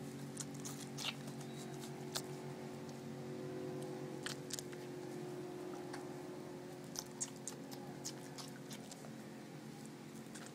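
Puppies suckling at their mother's teats: scattered small wet clicks and smacks, over a steady low hum.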